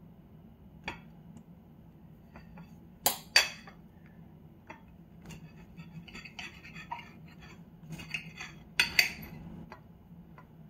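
Metal fork and knife clinking and scraping against a plate while cutting into waffles: scattered sharp clinks, the loudest a pair about three seconds in and another near nine seconds.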